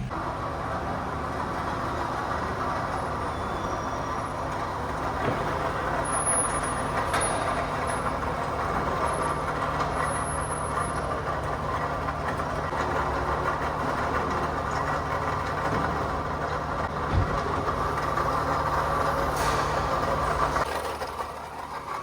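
Toyota Camry 2AZ four-cylinder engine running with a steady mechanical noise from its failing water pump: the pump pulley has play and wobbles side to side, the sign of a worn pump bearing. The noise drops away near the end.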